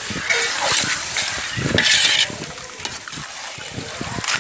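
Chicken and masala frying in a large aluminium pot, stirred with a metal spatula: a hissing sizzle that swells for the first couple of seconds and again at the very end, with scraping knocks of the spatula against the pot.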